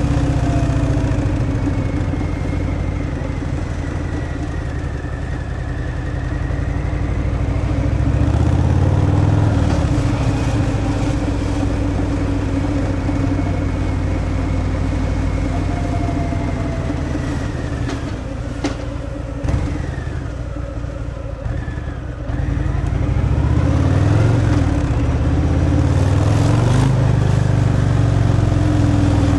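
Harley-Davidson Fat Boy's Milwaukee-Eight 114 V-twin running on its stock exhaust while riding. It eases off about two-thirds of the way through, with two short clicks, then picks up again.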